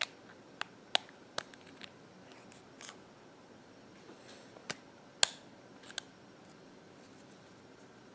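A metal precision screwdriver tip clicking and ticking against the plastic top cover of a Microsoft Zune 30GB as the cover is pried up. There are about nine separate sharp clicks, the loudest a little past five seconds in.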